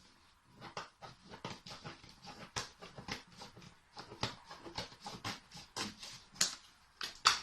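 Cardboard box and packaging being opened by hand: an irregular run of crackles, scrapes and snaps, several a second, with a sharp loud snap near the end.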